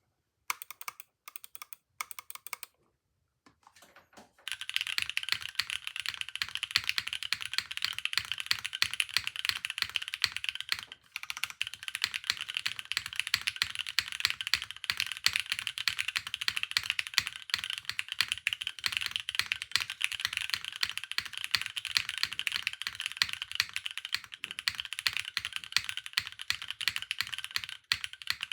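Spyder TKL mechanical keyboard with Cherry MX2A Black linear switches, lubed with Tribosys 3024, being typed on. A few scattered keystrokes at first, then fast continuous typing from about four seconds in, with a brief pause near eleven seconds.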